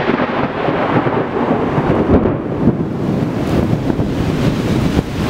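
Thunder from a supercell thunderstorm rumbling on without a break, with strong wind gusting across the microphone.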